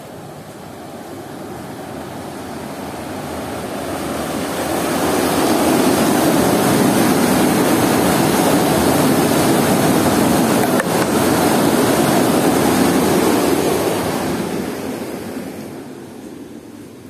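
Rainwater rushing and churning through a concrete channel, pouring around concrete blocks; the channel is running full after a downpour. The rush swells over the first few seconds, stays loud, and fades away near the end.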